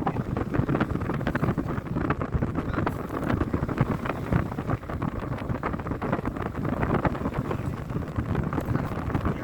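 Wind buffeting the microphone: a steady, uneven low rumble with no distinct bangs.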